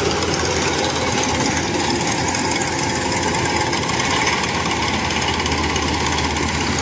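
Diesel engine of a tracked rice combine harvester running steadily close by as the machine moves along the muddy edge of a paddy ditch.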